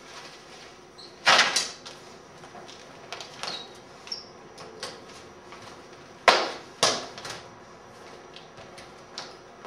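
A large umbrella swung hard and flicked open and shut in a martial-arts form, with footwork on a tile floor: sharp swishing snaps that come in two loud pairs, about a second in and about six seconds in, with lighter ones between.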